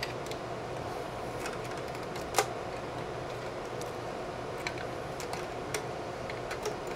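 Cables being pressed by hand into an open rack-server chassis: faint handling noise with a few small clicks, the sharpest about two and a half seconds in, over a steady low room hum.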